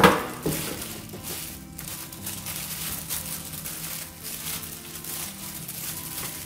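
Soft background music with steady held notes, over the crinkling and tearing of cooked chicken being pulled apart by hands in disposable plastic gloves on a wooden board. A sharp knock sounds at the very start, with a smaller one about half a second later.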